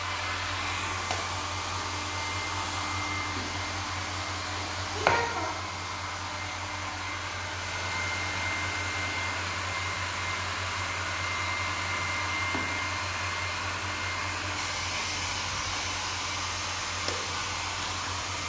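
Small handheld hair dryer running steadily, blowing on a puppy's wet fur, a steady rush of air with a thin whine. A single sharp knock about five seconds in.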